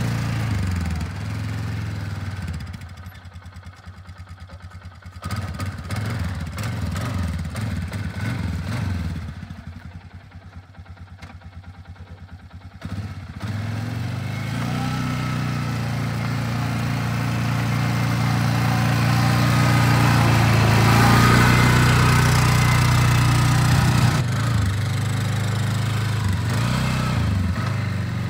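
Polaris Sportsman 500 ATV's single-cylinder four-stroke engine running as it is ridden. Its level drops away twice, then builds up to its loudest about three-quarters of the way through and eases off again.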